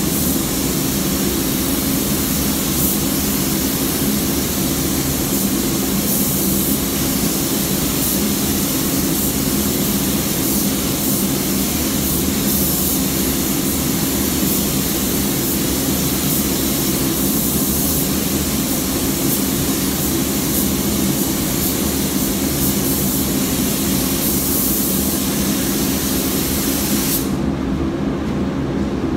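Spray gun hissing with compressed air as it lays clear coat, in passes that swell and ease, over the steady low drone of the paint booth's ventilation. The spray hiss cuts off suddenly about two seconds before the end, leaving the drone.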